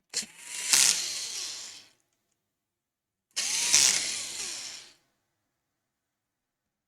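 Small electric screwdriver running in two bursts of about a second and a half each, driving in laptop battery screws.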